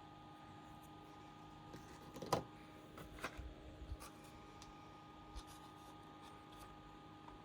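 Faint clicks and taps of hands working on an open laptop while its RAM modules are removed, the loudest knock about two seconds in, followed by a few smaller clicks, over a steady electrical hum.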